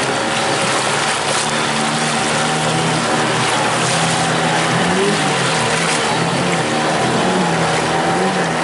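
Motorboat engine of a wooden river longboat running hard under load against rapids, its pitch wavering up and down a few times in the second half, over the rush of white water along the hull.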